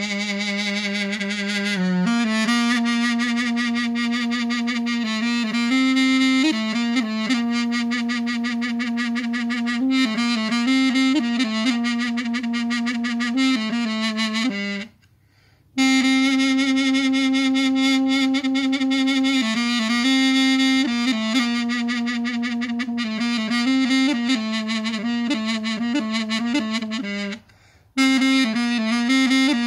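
Mey, a wooden double-reed woodwind, played solo: a slow, low melody of long held notes that step within a narrow range. It breaks off briefly twice, about halfway through and near the end.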